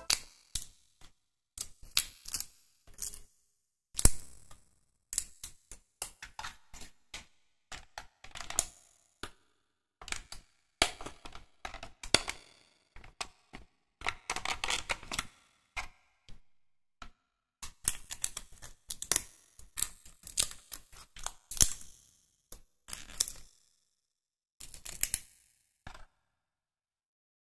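Irregular small clicks, taps and scrapes of 3D puzzle pieces being pressed out of their printed sheet and slotted into the model by hand, with busier stretches of handling in the middle.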